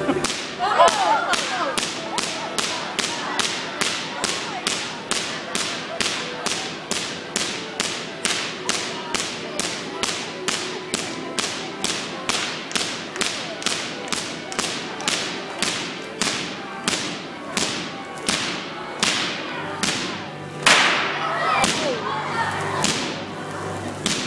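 Van de Graaff generator throwing small electric sparks, each a sharp crack, repeating at about two a second.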